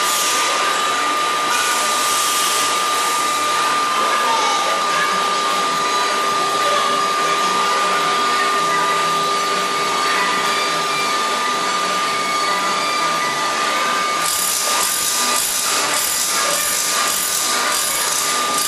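Workshop machinery running steadily: a blower-like whirr with a constant high whine. From about three-quarters of the way through, a harsher hiss with irregular knocks and clatter joins in.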